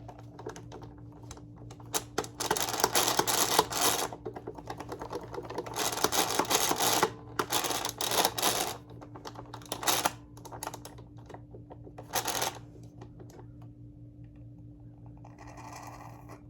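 Rattling, clicking bursts from the small wheels of a Hoover Convertible upright vacuum as they are spun and handled, five times. The wheels are freshly oiled but still a little loud.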